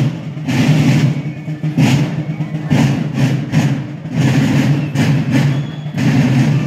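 Marching drums of a folk procession beating a steady march rhythm, about two strokes a second, over a dense low drum roll.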